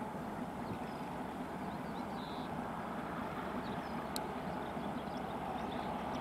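TE33AC diesel-electric locomotive running steadily as it approaches hauling a freight train, its engine sound growing slightly louder, with faint bird chirps above it.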